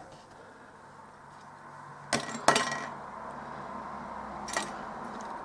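Two sharp metallic clinks about half a second apart a couple of seconds in, and a fainter one near the end, from small tools and parts on a soldering bench while resistors are soldered onto a circuit board. A faint steady hiss runs underneath.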